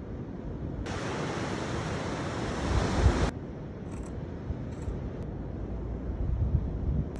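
Wind buffeting the microphone over the wash of sea surf below. A louder rushing hiss starts about a second in, lasts about two and a half seconds and cuts off abruptly.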